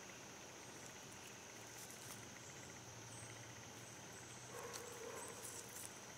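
Faint outdoor background: a steady high-pitched chirring of crickets, with a few faint clicks and rustles of handling near the middle and end.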